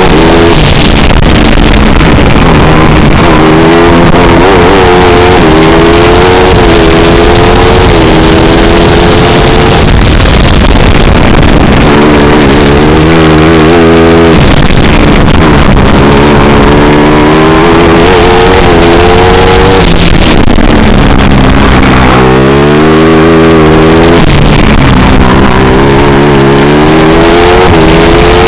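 On-board sound of a 250 cc four-stroke racing kart engine under hard throttle, loud, its pitch climbing steadily along the straights and dropping sharply several times as the revs fall.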